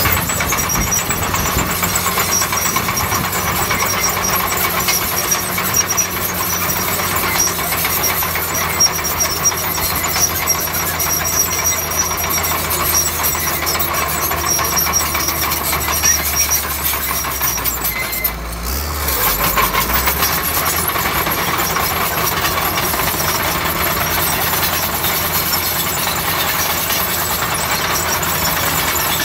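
Crawler bulldozer's diesel engine running steadily under load while pushing soil. The engine note dips briefly about two-thirds of the way through, then picks up again.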